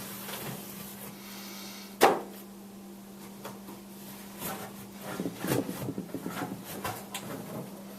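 Handling noises of a MacBook laptop being set down and touched: one sharp knock about two seconds in, then scattered small taps and rustles, over a steady low hum.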